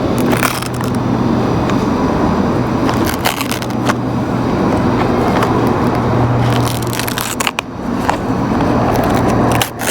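Paper wrapping crinkling and rustling as a hamburger is unwrapped by hand, in irregular crackles, over a steady low hum.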